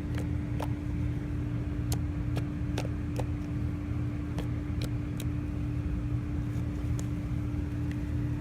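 Homemade fluffy slime being kneaded and squished by hand, giving small sharp pops at irregular intervals, about ten in all. Underneath runs a steady low hum.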